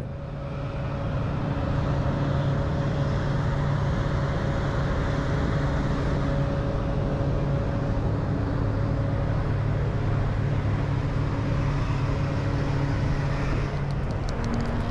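Steady drone of ground machinery on an airport apron: a low, even hum over a rushing noise, with the hum changing pitch near the end.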